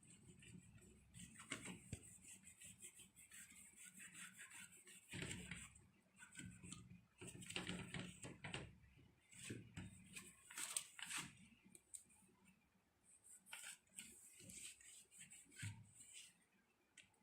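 Faint cloth wiping on a microwave oven's casing: irregular rubbing strokes with scattered light knocks and clicks.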